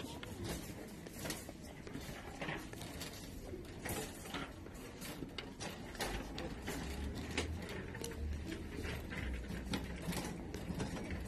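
Wire shopping cart rattling and clicking as it is pushed along, with irregular clatters from its wheels and basket. A low rumble joins about halfway through.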